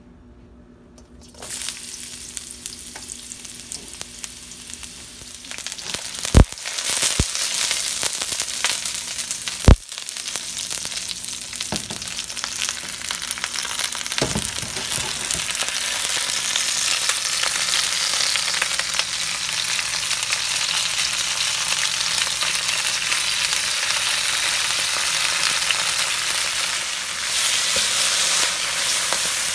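Hot oil in a wok starts sizzling about a second and a half in and builds to a steady, loud sizzle as bok choy and onion fry and are stirred. Two sharp knocks, the loudest sounds here, stand out in the first third.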